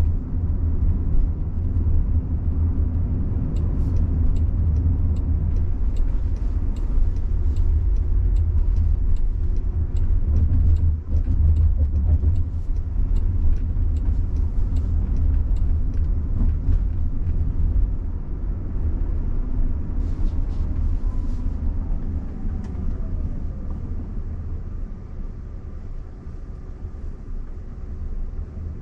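Road and tyre rumble heard inside the cabin of a Waymo robotaxi as it drives, easing off in the second half as the car slows, with a faint falling whine as it does.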